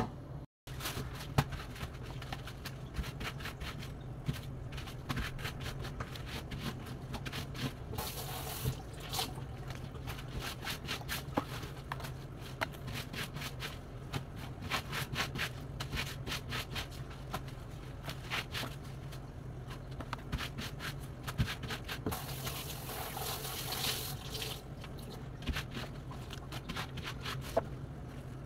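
Plastic wrapping crinkling and rustling as food is unwrapped and handled on a cutting board, with tap water running briefly twice, about a third of the way in and again at about three-quarters.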